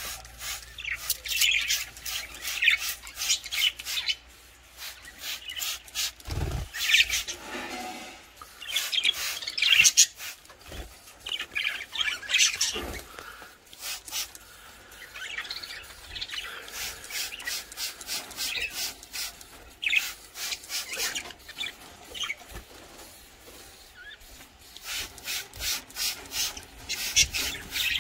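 Hand trigger spray bottle squirting water in runs of quick strokes, several squirts a second, misting the caged birds to bathe them. Small caged birds chirp between the runs of spraying.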